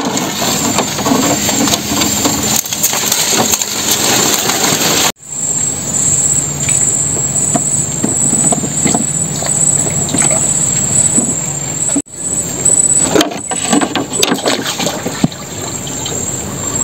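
Rustling and knocking of brushwood and a wooden boat, under a steady high insect drone. The sound breaks off abruptly a few times.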